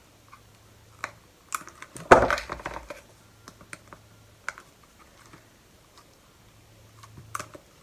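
Crop-a-Dile hand hole punch biting through a paper-covered cardboard cover: a loud crunching punch about two seconds in, with lighter clicks of the tool's jaws and handling of the board around it.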